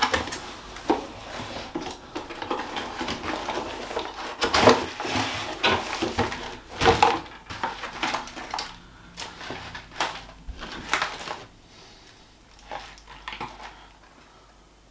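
Cardboard packaging being handled: rustling, scraping and knocks as a spray gun and pot in a cardboard insert are lifted out of a cardboard box. The sounds are fainter over the last few seconds.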